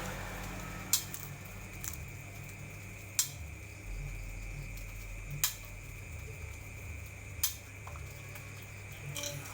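Scattered sharp metal clinks of cooking utensils, about six spread a second or two apart, over a steady low hum.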